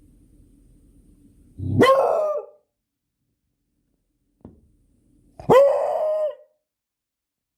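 Beagle giving two drawn-out barks, each under a second long, the pitch holding steady and then dropping off at the end. The first comes about a second and a half in, the second a few seconds later.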